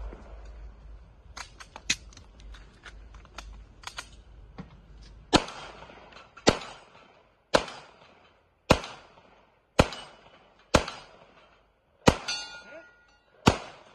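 Handgun firing at distant steel targets. There are a few fainter cracks early on, then eight loud, evenly paced shots about a second apart from about halfway in. At least one hit leaves the steel plate briefly ringing.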